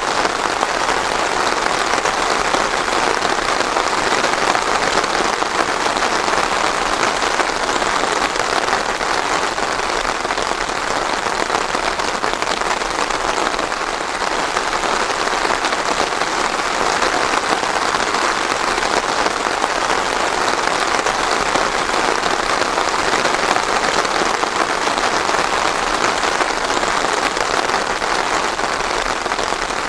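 Steady rain falling on a surface, an even hiss of many drops with no thunder.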